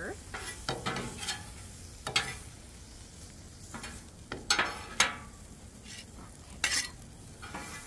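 Metal spatulas scraping across the steel top of a Blackstone flat-top griddle and knocking against a pan in a handful of short strokes, the loudest about five seconds in, over faint sizzling of onions and mushrooms.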